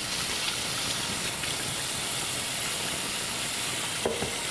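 Kitchen faucet running in a steady stream into a stainless steel sink, with hands being washed under the water.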